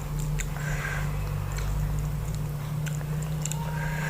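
Close-up chewing of fatty mutton curry: soft wet smacks and small mouth clicks scattered through, over a steady low hum.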